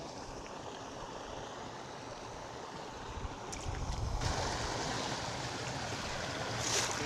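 Steady rush of flowing water, with a low rumble swelling for about a second roughly four seconds in.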